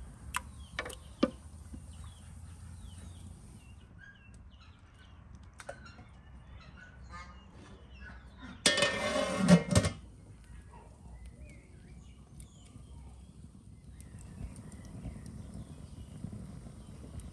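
Glass jars knocking against a metal pot as they are set into it, three sharp clinks in the first second and a half. About nine seconds in comes a loud farmyard fowl call lasting over a second, with small birds chirping faintly.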